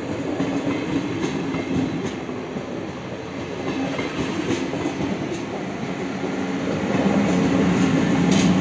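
SBB double-deck electric commuter train rolling past, its wheels clicking over rail joints a few times, with a steady low hum that grows louder near the end as the locomotive comes by.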